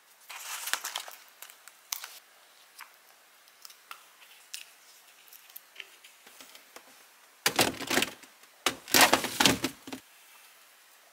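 Sticker labels peeled off their backing sheet with a light crackle and pressed onto plastic food-storage containers, with scattered small clicks. About seven seconds in come two louder bursts of knocking and scraping as the plastic containers are handled and set in place.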